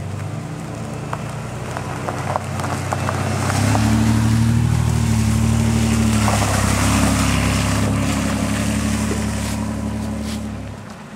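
Ford sedan driving past slowly on a dirt road: tyres crunch on the gravel as it approaches, then the engine hum swells as it passes close by and fades away near the end.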